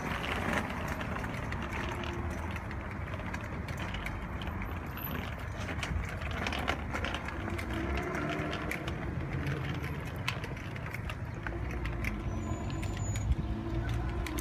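Small plastic wheels of a three-wheeled kids' kick scooter rolling over rough asphalt: a steady rolling rumble with scattered clicks and knocks.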